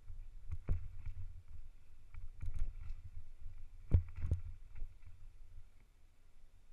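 Mountain bike descending rough singletrack, heard from a helmet-mounted camera: a steady low rumble of the ride with several sharp knocks and clatters as the bike hits rocks and roots, the loudest about four seconds in.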